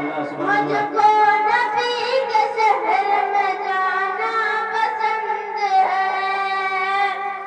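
A boy singing a naat solo into a microphone, a long ornamented vocal line that bends through many notes. It ends on a long held note that fades away near the end.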